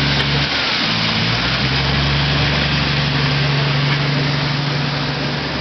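An engine running steadily, its pitch dipping briefly about half a second in before settling back.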